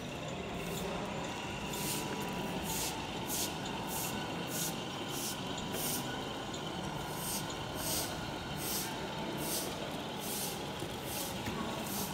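Scale RC truck sound effects: short air-brake hisses repeating irregularly, about one a second, over a steady low hum.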